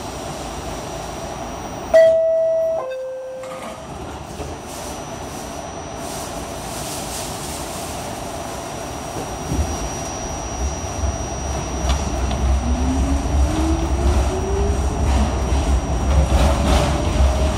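R68A subway car's two-tone door chime about two seconds in, a higher note then a lower one, as the doors close. From about halfway through, a low rumble builds and the traction motors start a steadily rising whine as the train pulls out and speeds up.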